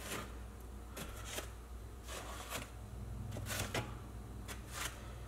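Plastic notched spreader scraping tile mastic onto the wall and the aluminium Schluter edge trim: a string of short, faint scrapes, about two a second, over a low steady hum.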